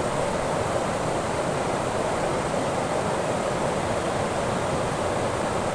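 Steady rushing of flowing river water, an even noise that holds at one level.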